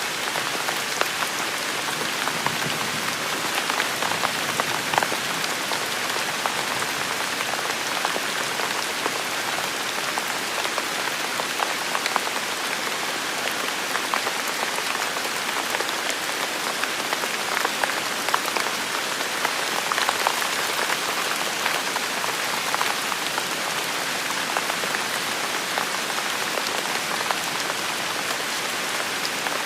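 Steady rain falling and spattering on hard surfaces, with a dense patter of individual drops. No thunder is heard.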